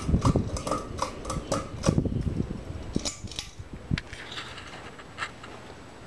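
Metal ball pull chains clicking and clinking against the ceiling fan's glass light bowl as the light is pulled off, a quick run of sharp clinks over the first few seconds. After that the Hunter Fremont ceiling fan runs with a faint, steady low hum.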